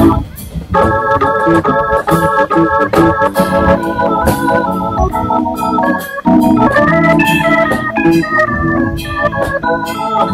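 Hammond organ playing held chords and melody over electric bass and a drum kit with a steady cymbal pulse, in a jazz instrumental.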